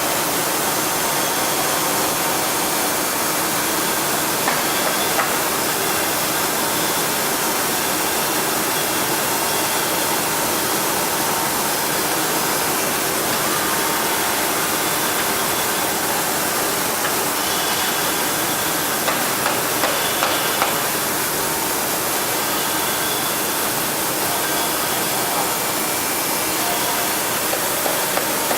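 Heian ER 531P CNC router running: a steady loud hiss with faint high whining tones and a few small ticks now and then.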